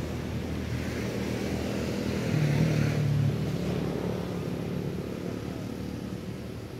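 A motor vehicle's engine running steadily, getting louder about two and a half seconds in, then slowly fading away.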